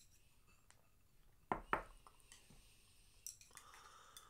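A ceramic bowl set down on a wooden table, two sharp knocks about a second and a half in, followed near the end by lighter clicks and scraping of chopsticks against a rice bowl.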